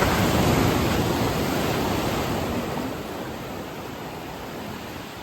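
An ocean wave breaking on the beach: a sudden crash that is loudest at the start, then a long wash of surf that slowly fades.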